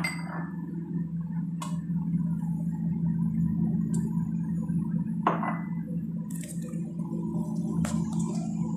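Wooden spoon stirring a pot of broth, knocking and clinking against the pot a few times, the loudest right at the start and about five seconds in, over a steady low hum.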